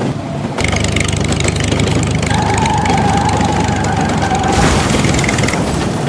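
An engine sound effect for a toy tractor, running steadily. It comes in about half a second in, and a steady whine joins it through the middle.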